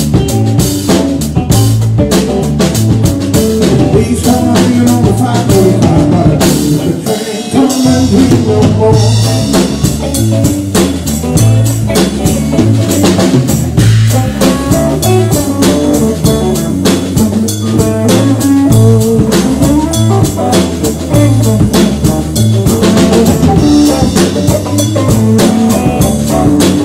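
Live blues band playing: guitar over a drum kit keeping a steady beat.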